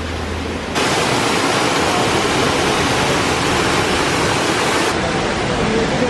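Rushing water of the Düden river and waterfall: a loud, steady, even rush. It jumps louder about a second in and eases slightly near the end.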